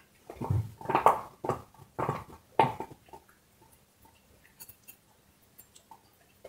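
A dog chewing on a large bone: about five loud bites in quick succession over the first three seconds, then only faint clicks.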